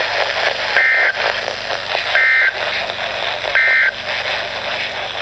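Three short bursts of two-pitch digital data tones from a NOAA Weather Radio broadcast, about a second and a half apart, over steady radio hiss. They are the SAME end-of-message code that closes an alert or test.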